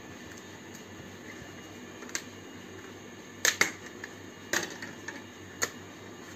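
Five sharp clicks and taps of thin sunmica laminate pieces being handled on the workbench, two of them close together midway, over a faint steady room hum.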